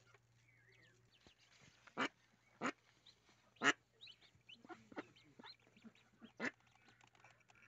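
Mallard hen giving four short, loud quacks, the last one a few seconds after the first three, while her ducklings peep faintly between them.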